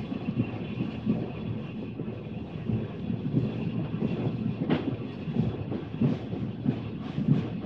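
Steam train running along the track, a steady rhythmic low pulsing with a sharp clank about four and a half seconds in.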